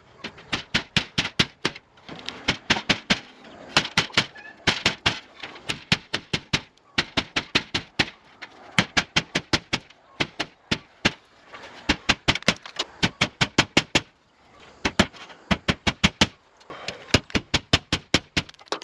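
Rapid runs of hammer blows driving nails into roof flashing, several strikes a second with short pauses between runs.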